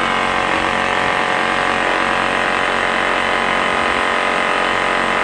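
Honda suitcase inverter generator's small four-stroke engine running at a steady even speed, its carburetor freshly cleaned with Seafoam fuel system cleaner after the engine had been hydrolocked with oil.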